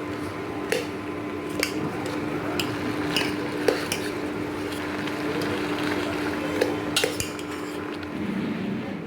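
A spoon stirring tomato and onion cooking in a pan, clinking sharply against the pan about eight times at irregular moments, over a steady hum and an even hiss.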